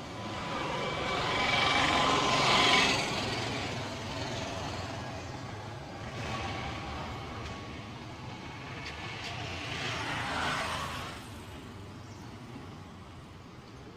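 Road traffic: two vehicles pass by over a steady rumble, each swelling and fading over a few seconds. The first is louder, peaking about three seconds in, and the second about ten seconds in.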